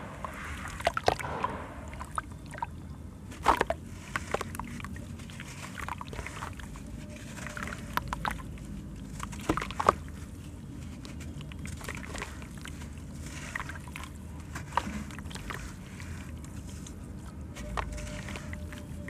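Hands crumbling wet sand-cement chunks into a tub of water: water sloshing, with irregular sharp crunches, splashes and drips as crumbs and powder fall in.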